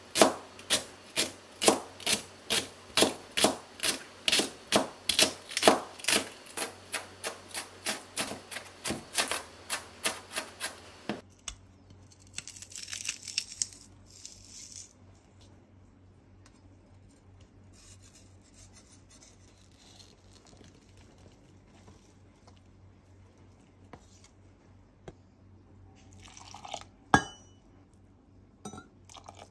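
Knife chopping on a cutting board in even strokes, about three a second, for roughly eleven seconds. Then comes a few seconds of rough scraping noise and some light knocks, one sharper near the end.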